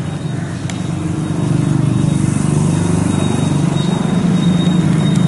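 A motor vehicle's engine running steadily, its hum growing louder about a second and a half in.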